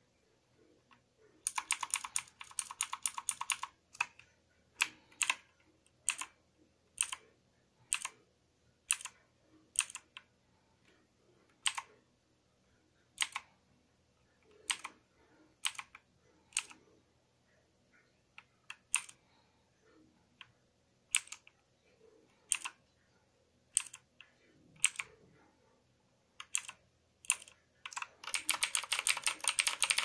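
Redragon K580 VATA mechanical keyboard being typed on: a fast run of keystrokes, then single key presses about one a second, then another fast run near the end.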